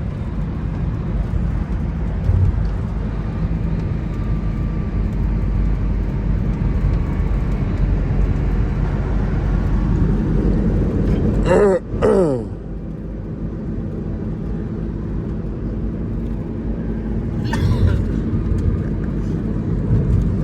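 Minibus engine and road rumble heard from inside the cabin, steady and low. Near the middle a brief falling sound comes twice in quick succession.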